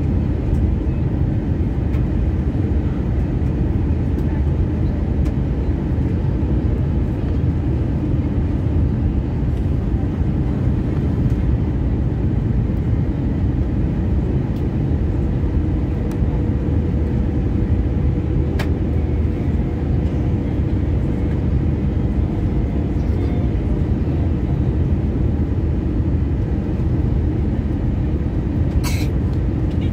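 Steady roar inside the cabin of an Airbus A320-233 in flight, from its IAE V2500 turbofan engines and the airflow, deep and even throughout. A single sharp click comes about two-thirds in, and a brief higher sound near the end.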